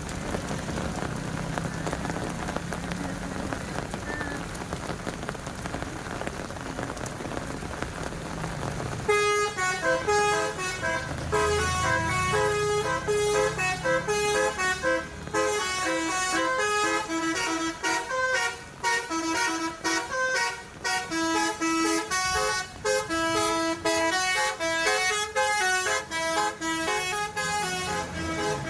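A bus's basuri telolet horn, a set of multi-trumpet air horns, playing a quick melody of stepped, held notes that starts about nine seconds in and runs on loud. Before it there is a steady hiss with a low engine rumble.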